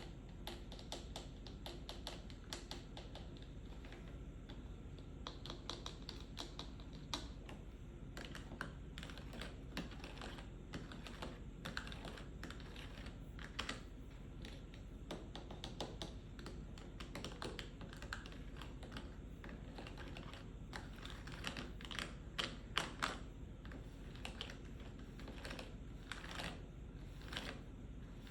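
Fingers tapping on a medicine/pill box in quick, irregular runs of sharp little taps, with a few louder taps about two-thirds of the way through.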